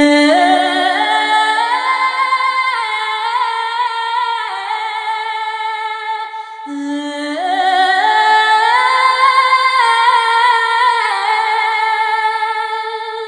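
Wordless high vocal melody, sung or hummed in long gliding notes with no beat. It comes in two phrases, the second starting about six and a half seconds in.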